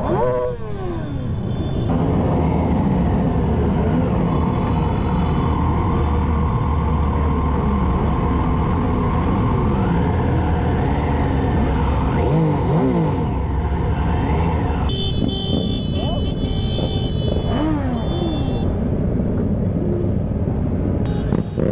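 A large mass of motorcycles riding together, their engines running in a steady drone while individual bikes rev up and down over it. For a few seconds past the middle, a high-pitched steady tone joins in.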